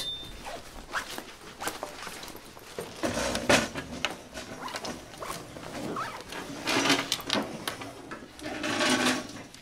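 Classroom packing-up noise: bags, school things and coats handled, with scattered light knocks and clicks on the desks and zips. There are a few louder bursts of rustling and scraping, about three seconds in, around seven seconds, and near the end.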